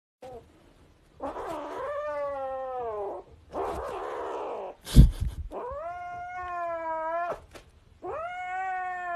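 Kitten yowling in long, drawn-out wails, four in a row, the second one raspy. A sharp loud thump comes about five seconds in.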